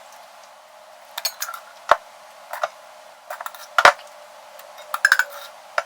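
Scattered clicks and clinks of a serving utensil against cookware as cooked steak is scooped into bread, with two sharper knocks about two and four seconds in.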